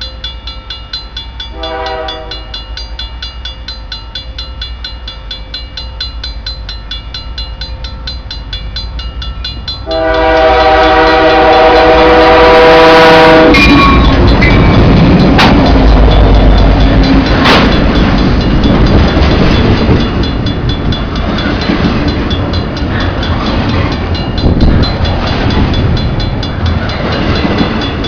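Level-crossing warning bell ringing rapidly and steadily throughout. A CN locomotive's horn gives a short blast about two seconds in and a long loud blast at about ten seconds. Then the train passes close by with loud rumbling and wheel clatter on the rails while the bell keeps ringing.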